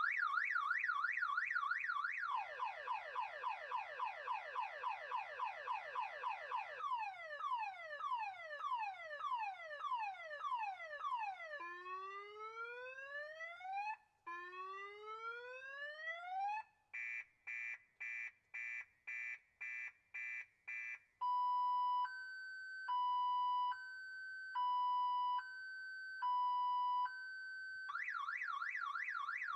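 Car alarm siren cycling through its sequence of tones. It goes from a fast warble to rapid falling chirps, then slower falling sweeps and two long rising whoops. Quick beeps follow at about two a second, then a high-low two-tone, and the fast warble returns near the end.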